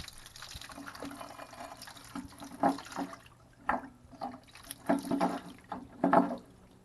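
Water running out of the open heating-element port of an electric water heater tank and splashing, with about four louder spurts in the second half.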